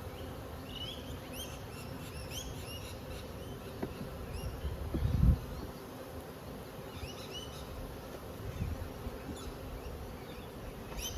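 Honey bees buzzing around an open hive during a brood inspection: a steady hum. A brief low thump comes about five seconds in.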